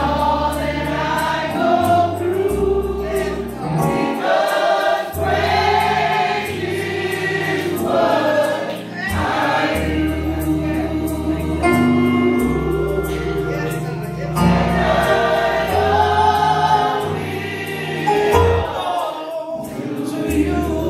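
Church choir singing a gospel song over a sustained bass accompaniment, with scattered hand claps.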